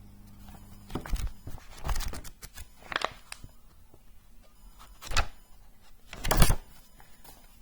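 Handling noise of paper booklets: a few rustles and dull thumps as they are moved and set down, the loudest thump near the end.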